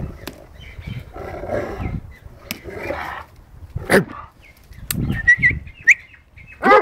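An old Rottweiler growling in play as it tugs at a ball, then barking once about four seconds in and again near the end.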